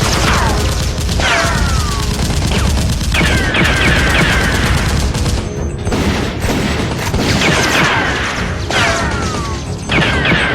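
Rapid gunfire sound effects over action music, in bursts separated by short pauses, with clusters of falling whistling tones.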